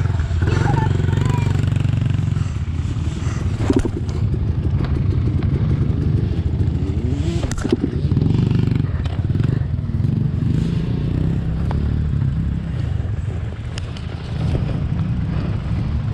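Yamaha YZ65 two-stroke dirt bike engine running steadily at low revs, with a couple of short sharp knocks.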